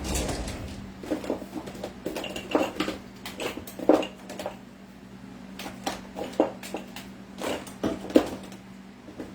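Kitchen clatter: irregular knocks and clinks of containers being picked up and set down while rummaging for a seasoning, over a steady low hum.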